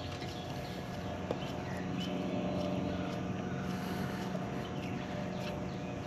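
A steady machine hum with a faint single click about a second in.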